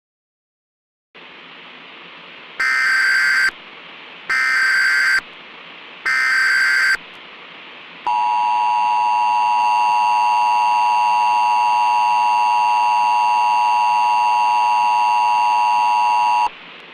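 Emergency Alert System broadcast tones over a steady hiss that starts about a second in: three one-second bursts of SAME digital header data, then the two-tone EAS attention signal held for about eight seconds before cutting off. It is the signal that an emergency alert message follows.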